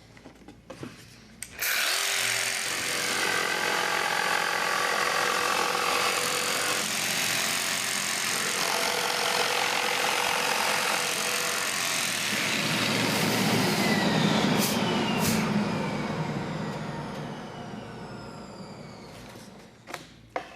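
Festool PS 300 EQ Trion jigsaw switched on about two seconds in, cutting with an aggressive FSG blade at its most aggressive stroke setting. The motor then winds down, falling in pitch over the last few seconds.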